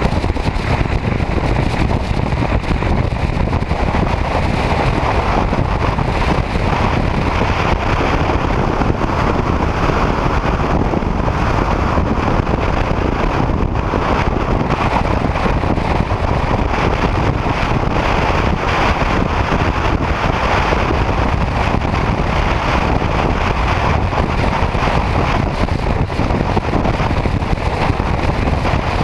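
Steady wind rush on the microphone of a motorcycle cruising at highway speed, with the bike's engine and road noise underneath.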